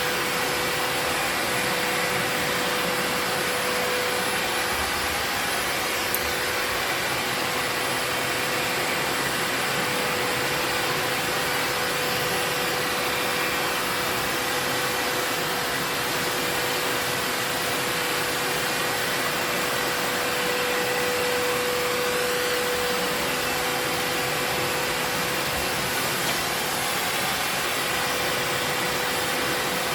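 Vacuum cleaner running steadily at a constant pitch, a rushing of air with a steady hum.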